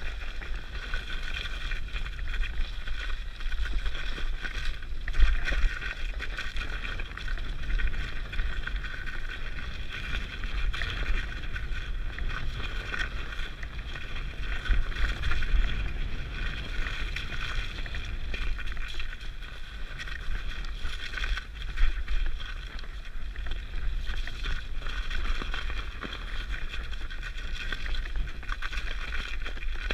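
Mountain bike riding down a bumpy snow-covered trail, heard from a helmet camera: a low rumble of tyres and jolts, with wind on the microphone and a steady high hiss. Sharper knocks come where the bike hits bumps, at about five, fifteen and twenty-two seconds.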